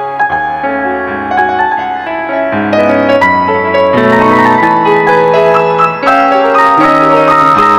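Instrumental background music led by piano, a steady flow of notes that grows louder and fuller about halfway through.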